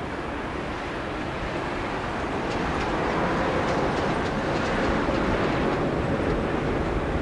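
Jet aircraft engines, a steady roar that grows slowly louder as the aircraft approaches, with a faint steady tone running through it.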